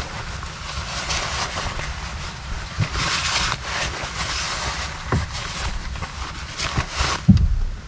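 Wind buffeting the microphone in a steady low rumble, with rustling and handling as a backpack is swung on and a bag lifted out of a car boot; a few dull thumps near the end, the loudest about seven seconds in.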